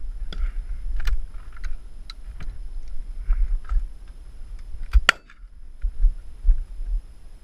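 Wind buffeting the microphone in a steady low rumble, with a few light clicks and one sharp, loud crack about five seconds in.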